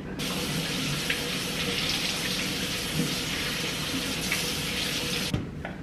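Kitchen faucet running, with celery stalks rinsed under the stream. The water comes on right at the start and is shut off suddenly near the end.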